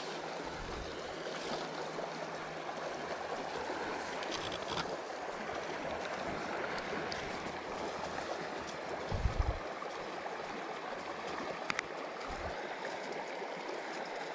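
Shallow river water running steadily over a rocky bed, an even rushing close to the microphone. There is a brief cluster of low thumps about nine seconds in, plus a couple of faint clicks.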